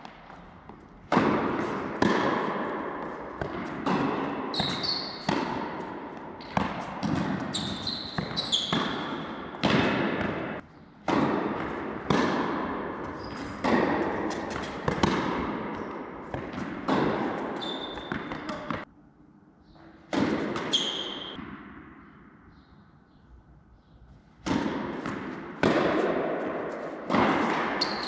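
Tennis rally in an indoor hall: rackets strike the ball back and forth about once a second, each hit ringing on in the hall's echo, with short high squeaks of shoes on the court between strokes. The strokes stop for a few seconds in the middle between points, then another rally starts.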